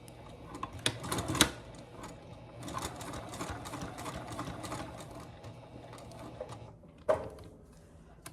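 Sewing machine stitching along the edge of a strap connector, running for several seconds in a rapid mechanical rhythm, with two sharp clicks about a second in and another sharp click near the end after it stops.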